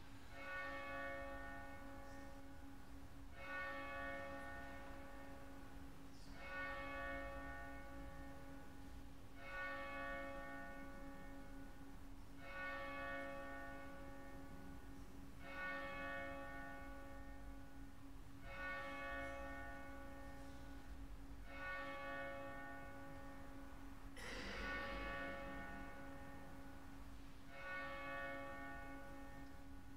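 A single church bell tolled slowly, one stroke about every three seconds, each ringing on and fading before the next. The stroke just after twenty-four seconds is louder than the rest.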